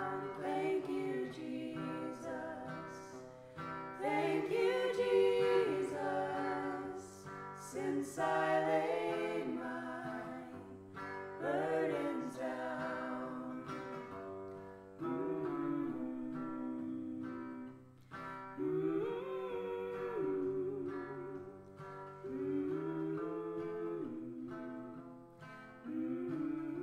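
Two women singing with acoustic guitar accompaniment, in long held phrases with short breaks between them.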